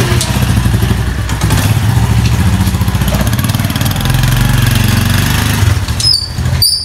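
Small Honda motorcycle's single-cylinder four-stroke engine running and revving up twice as the bike pulls away. About six seconds in it cuts off abruptly, followed by a few short high squeaks.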